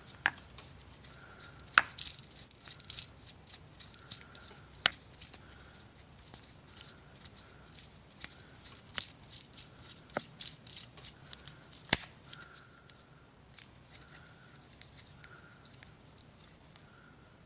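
Small hard parts of a motorcycle turn signal and its mount clicking and clinking irregularly as they are handled and fitted together, with one sharper click about twelve seconds in.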